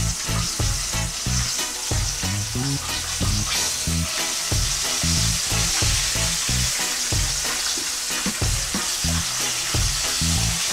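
Flour-dusted fish slices deep-frying in hot oil in a pot: a steady sizzle full of small crackles.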